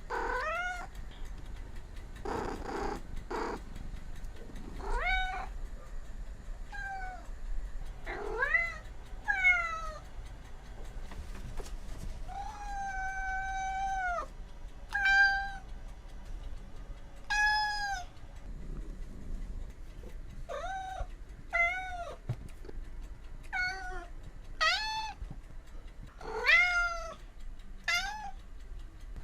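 Cat meowing over and over, a run of short meows with one longer, drawn-out meow about halfway through.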